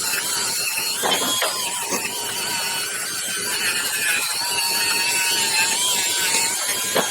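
Powered wire wheel spinning with a steady whine and a dense scratchy hiss as it scrubs heavy rust off a steel 10-inch Ridgid pipe wrench.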